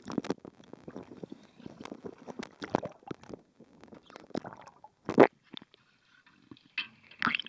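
Water gurgling around a camera as it goes under, with scattered knocks and clicks and one loud knock about five seconds in.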